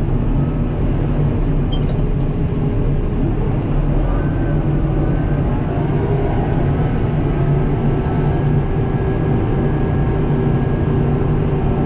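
Kubota M7060 tractor's four-cylinder diesel running steadily under load, heard from inside the cab, with a rattle from the four-wheel-drive engagement lever. The owner says the lever rattle is common on 7060s and starts around 100 hours.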